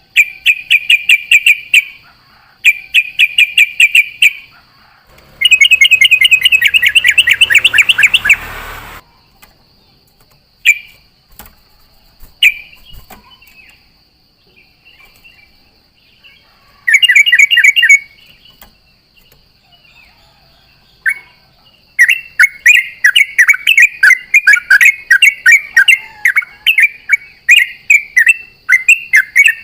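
Yellow-vented bulbul (trucukan) singing loudly: runs of rapid, bubbling repeated notes in phrases of one to four seconds, a few scattered single calls in a quieter stretch, then one long unbroken run of song from about two-thirds of the way in.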